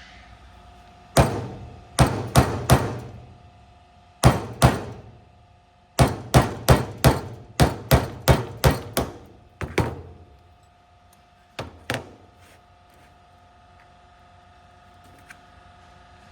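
Hammer blows on a metal punch, driving out the fasteners that hold the polyurethane strip on a trap throwing arm. About twenty sharp strikes come in bursts, some in quick runs of about three a second, with the metal ringing after them. The blows stop near the end.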